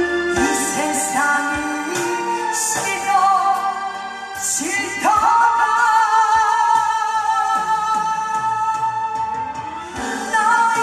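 A singer performing a song live over instrumental backing with drums, holding one long wavering note through the middle.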